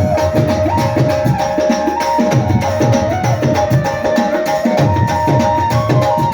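Tabla played in a steady keherwa rhythm: quick strokes on the treble drum, with bass-drum strokes whose pitch swoops up and down. Under it runs an accompanying melody of held notes that steps between pitches.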